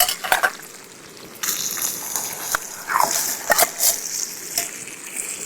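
Rice poured into a hot wok of frying cured pork and potatoes, bringing on a steady sizzling hiss about one and a half seconds in, with a few knocks of the pan and utensils.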